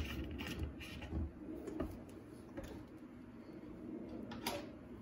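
A few faint, sharp clicks and taps of kitchen utensils against a glass mixing bowl as oil is poured over spices, over a low steady hum.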